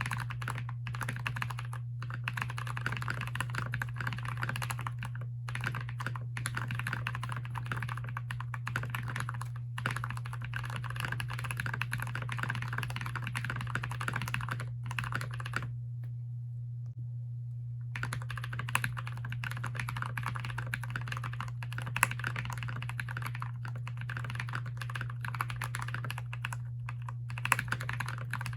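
Fast, continuous typing on a Keychron K6 mechanical keyboard with switches lubed with Krytox 205g0, the keystrokes clacking in quick runs. The typing stops for about two seconds about halfway through, then resumes, over a steady low hum.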